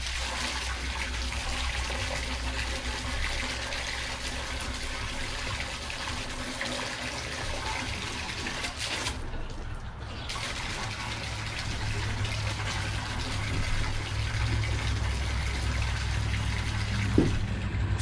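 Water from a garden hose nozzle pouring into a plastic bucket as it fills, a steady rushing splash. The stream stops for about a second halfway through, then runs again.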